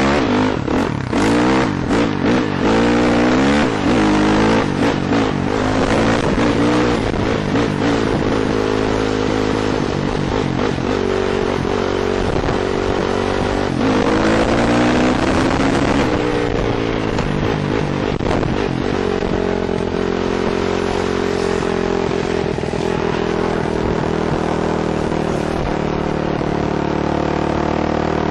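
KTM 450 four-stroke dirt bike engine being ridden hard, the revs rising and falling again and again as the throttle is worked and gears are changed, then settling to a steadier pitch for the last several seconds. Sharp knocks and rattles come from the bike over the bumpy trail in the first few seconds.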